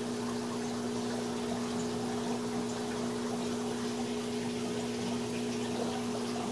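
Reef aquarium pumps running: a steady electrical hum with a second, higher tone above it, over an even hiss of circulating water.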